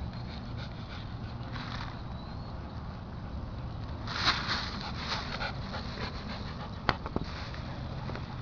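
A dog on a walk, with a stretch of quick, noisy breathing about four seconds in and two sharp clicks a little later, over a steady low background rumble.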